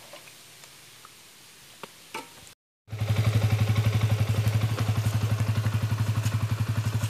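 Motorcycle engine idling with a rapid, even chug, cutting in suddenly about three seconds in. Before that there is only a quiet background with a few faint clicks.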